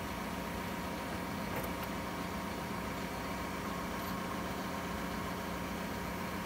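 Manitou aerial work platform's engine idling: a steady, even hum with a constant low tone and a faint higher tone above it.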